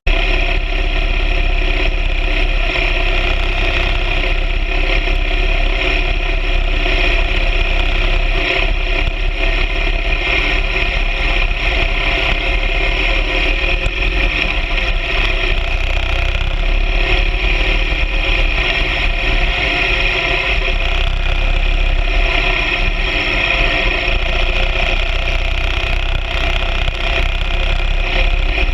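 BMW R 1200 GS Adventure sidecar outfit's flat-twin engine running steadily under way, a loud, even drone with no changes in pitch.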